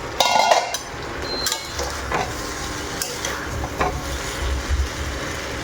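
Cauliflower and potatoes frying in a pan, sizzling steadily while being stirred, with scattered scrapes and knocks of the utensil against the pan.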